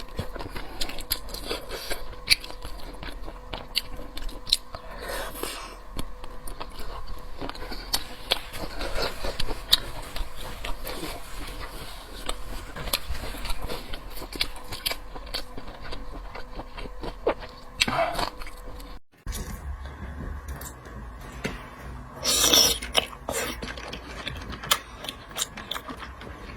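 Close-miked eating of seafood: wet chewing, crunching and biting, with small scrapes, mouth clicks and a few louder smacks.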